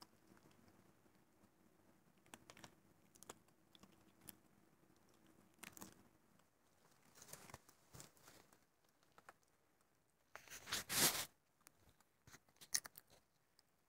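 Baby raccoon on a lamp shade: scattered soft clicks and scratches as it handles and licks food and shifts its grip on the shade, with one louder rustling scrape about ten seconds in and a few sharp clicks soon after.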